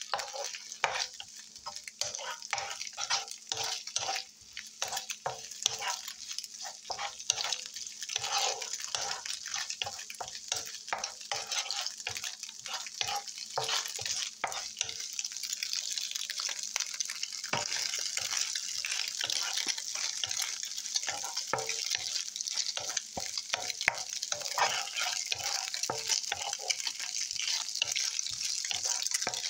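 Scrambled eggs sizzling in hot oil in a frying pan while a spatula stirs and scrapes through them in quick, irregular strokes. The sizzle grows steadier about halfway through.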